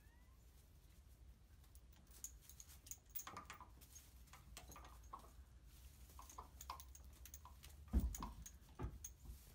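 Faint rustling and scattered small clicks as a kitten scrabbles in straw and tugs at a pony's lead rope, with a louder thump about eight seconds in and another just before the end.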